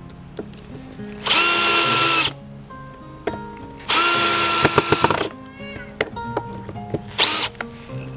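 DeWalt cordless drill driving screws through a metal pipe strap into a wooden raised-bed board. It gives three runs of motor whine: about a second, then about a second and a half with clicking as it finishes, then a short burst near the end.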